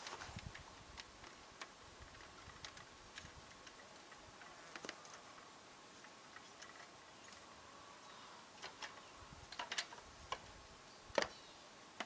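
Faint, irregular clicks and light taps, about a dozen scattered through, with a louder knock about eleven seconds in.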